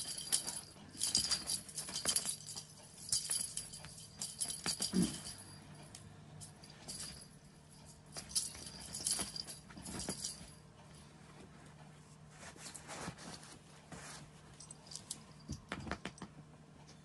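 A small jingle bell shaken in quick rattling bursts by cats at play, in clusters during the first five seconds and again around nine to ten seconds in, fainter and sparser later, with a few soft knocks.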